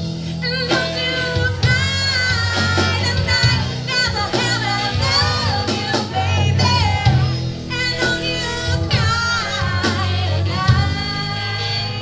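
Live rock band playing: a woman sings lead over electric guitars and a drum kit.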